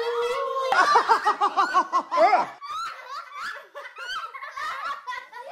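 People laughing: a hearty burst of rapid, repeated laughs starting about a second in, then trailing off into quieter giggles and snickers.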